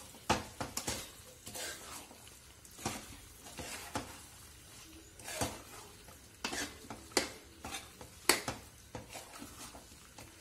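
A metal spoon stirring chickpeas in masala in a metal kadai, with irregular scrapes and clinks against the pan over a faint sizzle. The sharpest clink comes about eight seconds in.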